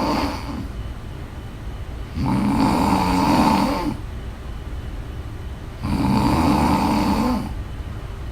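Steady rhythmic snoring: a loud snore about every three and a half seconds, each lasting about a second and a half, with quieter breathing between.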